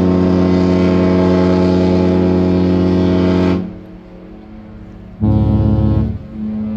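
Two cruise ships' horns, Norwegian Breakaway and Jewel of the Seas, sounding in turn. A long, deep, loud blast holds steady for about three and a half seconds and trails off in echo. About five seconds in comes a second, shorter blast at a different pitch, and near the end a fainter steady horn tone follows.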